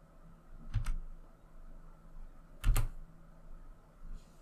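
Two sharp clicks about two seconds apart from operating the computer's keyboard and mouse.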